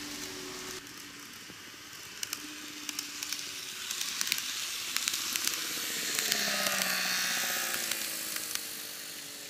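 An N-gauge model train (KATO N2000 series set) running on track: a steady hiss of wheels on rail with scattered clicks at rail joints. It grows louder as the train approaches. A whine from its motor slides down in pitch as the train passes close by, around two-thirds of the way in, then fades.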